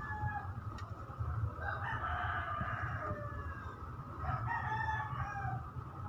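Two drawn-out animal calls, each a little over a second long: one about two seconds in and one near the end, over a low steady rumble.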